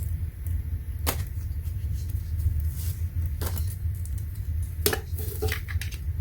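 A metal mounting bracket and its hardware clinking and knocking a few times as they are handled, with a cluster of clinks near the end, over a steady low hum.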